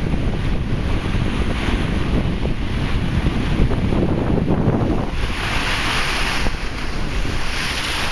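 Strong typhoon wind buffeting the microphone over rough surf on the bay. About five seconds in, a broad rushing hiss swells for a few seconds, like a wave breaking.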